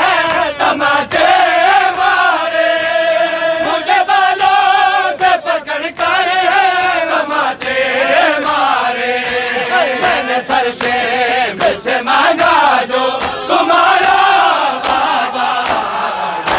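Men's voices chanting a Shia mourning lament (nauha) together, with long held notes. Many sharp slaps of hands on bare chests (matam) come from the crowd.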